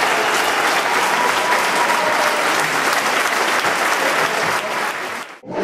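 Audience applauding steadily, a dense crackle of many hands clapping. Near the end the applause cuts off and a swooshing transition sound sweeps in.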